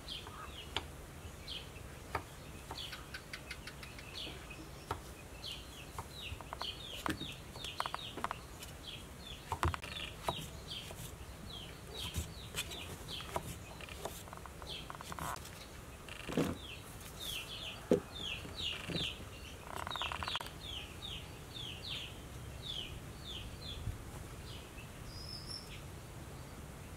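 Kitchen knife slicing mushrooms on a thick wooden chopping block, giving soft knocks now and then, louder a little past the middle. Birds chirp rapidly and continually in the background, with a few lower calls among them.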